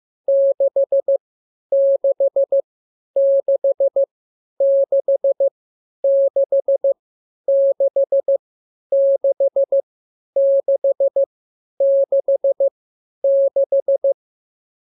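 Morse code practice tone sending the digit 6 (dash followed by four dots) ten times over, each group about a second long with short pauses between, at an even steady speed.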